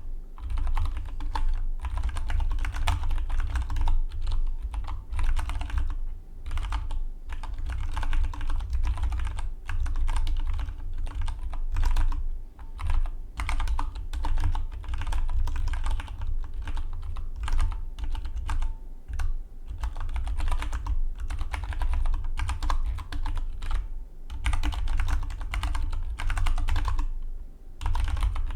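Fast typing on a Dygma Defy split mechanical keyboard: quick runs of key clicks with brief pauses between bursts.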